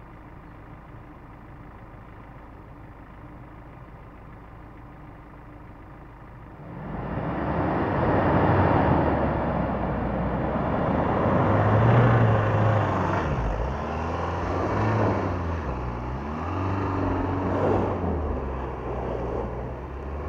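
Ford Ranger Raptor pickup idling quietly. About seven seconds in, it pulls away across grass, its engine revving up and down loudly as it drives past.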